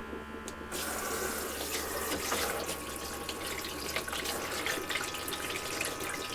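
Water running from the hose of a pressurized portable shower tank, starting about a second in and running steadily, with a faint steady hum underneath.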